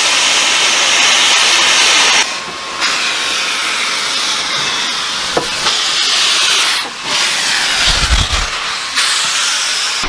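Steam locomotive venting steam around its cylinders and running gear: a loud, steady hiss that drops back briefly twice, with a few low rumbling thumps near the end.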